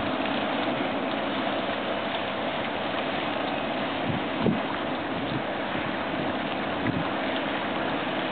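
Steady noise of a large open-top container ship passing close by, with wind on the microphone bumping briefly a few times.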